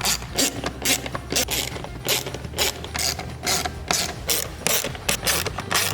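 Ratchet wrench with a 5.5 mm socket clicking in quick repeated back-strokes, about two to three a second, while backing out small screws.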